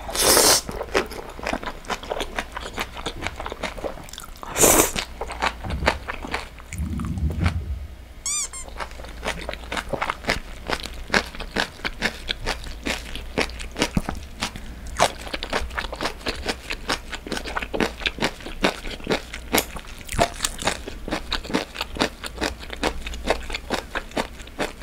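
Close-miked eating sounds: somen noodles slurped in at the start and again about five seconds in, then steady wet chewing with many small crunchy clicks. A faint low hum runs underneath.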